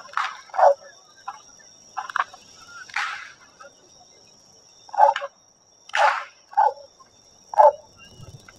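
Carnival whips (fwèt) cracking in the distance: about nine short, sharp cracks at irregular intervals, some coming in quick pairs.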